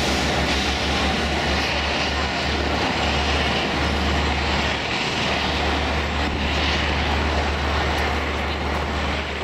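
Steady outdoor city noise: a low, fluttering rumble under an even hiss, with faint voices of passers-by.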